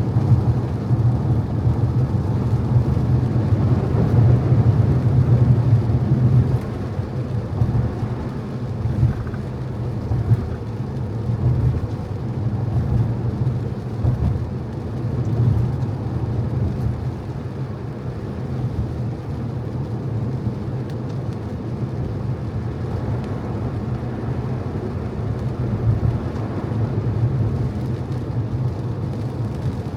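Car driving on wet roads in the rain: a steady low road rumble with a fainter hiss of tyres on the wet surface, a little louder for the first six seconds and then easing off.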